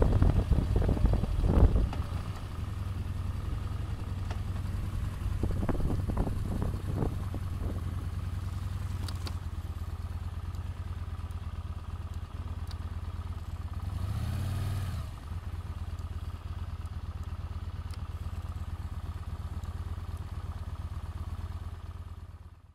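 Yamaha Bolt's V-twin motorcycle engine running while riding, louder for the first two seconds and then settling into a steady drone. A brief swell of noise comes about two-thirds of the way through.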